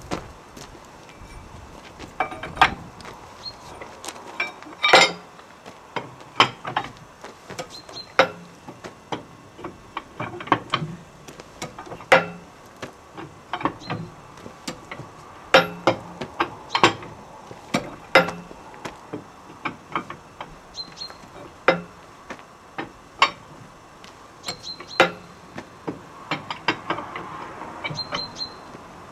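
Irregular sharp metallic clinks and knocks from hand tools at a 1960s double-decker bus's rear wheel, as the wheel nuts are worked loose.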